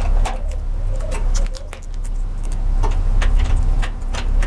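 Close handling noise of wires and a small rectifier circuit being twisted and fitted into an electric door latch: a scatter of light clicks and rustles over a steady low hum. Doves coo faintly in the first second or so.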